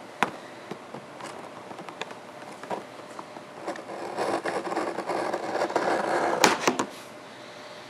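Scissors cutting open a CPU retail box at its edge: a scraping cut that builds from about halfway through and ends in a few sharp snaps, with a few light clicks of handling before it.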